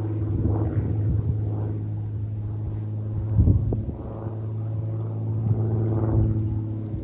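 Extra 300 aerobatic plane's six-cylinder Lycoming engine and propeller droning steadily overhead. Wind buffets the microphone in low rumbling gusts, strongest about halfway through.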